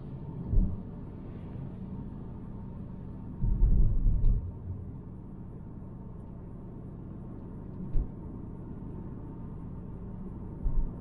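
Steady low cabin rumble of a 2018 Volvo V90 T5 Cross Country driving at road speed, from tyre and road noise over its turbocharged 2.0-litre four-cylinder. A few short low thumps break through: one about half a second in, a longer one around four seconds in, one at about eight seconds and one near the end.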